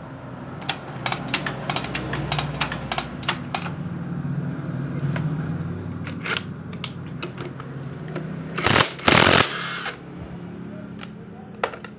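Metal hand tools clicking and clinking against the exposed clutch and kick-start parts of a Suzuki Crystal engine as it is taken apart, in quick irregular taps. About nine seconds in comes a loud rushing noise lasting about a second.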